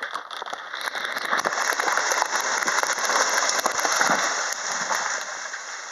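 Felled tree toppling: a dense crackling and crashing of breaking branches and foliage that builds about a second in, is loudest in the middle and dies away near the end.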